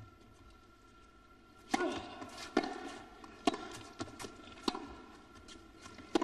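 Tennis ball being struck by rackets and bouncing on the court in a baseline rally, sharp pops about once a second with a short echo in the arena. The hall is hushed for the first second and a half, then the first hit comes.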